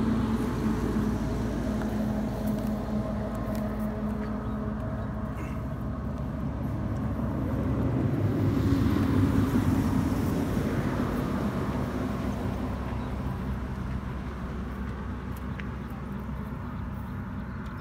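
A motor engine running steadily with a low hum, growing louder about halfway through and then easing off.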